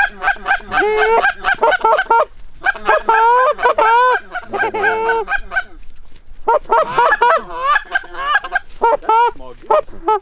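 Canada goose honks and clucks, many in quick succession and overlapping, in three loud runs with short pauses about two and six seconds in.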